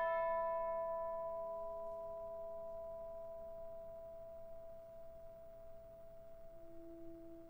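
A struck bell-like metal percussion instrument rings on, its several overtones slowly fading. A low held flute note enters near the end.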